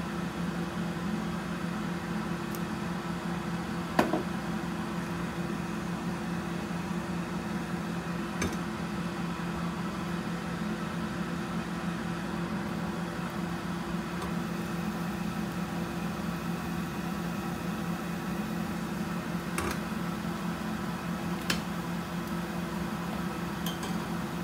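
Steady hum and hiss of a kitchen cooker-hood extractor fan running, with a few faint ticks scattered through it.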